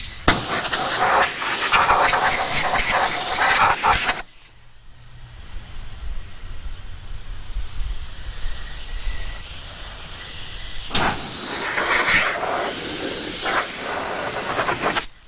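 Compressed-air blow gun hissing as it blows sanding dust off a car's trunk lid. The hiss is loud for about four seconds and cuts off sharply. It comes back fainter, builds up gradually, and is loud again near the end.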